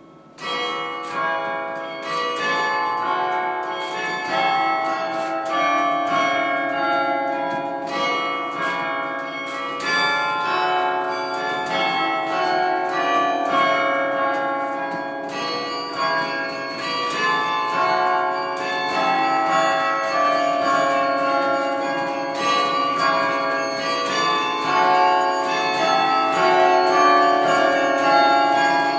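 The 72-bell carillon of Rockefeller Chapel played from its baton keyboard: a tune of many bells struck in quick succession, their notes overlapping and ringing on. It starts about half a second in.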